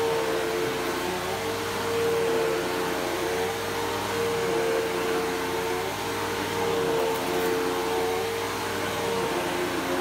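Bagless upright vacuum cleaner running as it is pushed back and forth over carpet: a steady motor whine with a rush of air, its pitch wavering slightly as the load changes.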